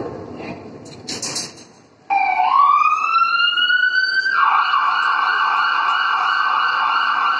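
Police-style siren sound effect from the dance's backing track, played loud over the hall's speakers: a wail rises in pitch for about two seconds, then switches to a rapid steady warble.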